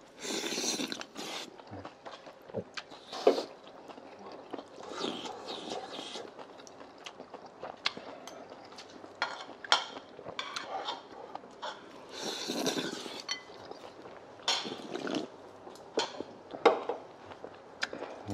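Chopsticks and metal spoons clicking and scraping against ceramic bowls and stone pots during a meal, in scattered short clinks, with a few brief noisy eating sounds between them.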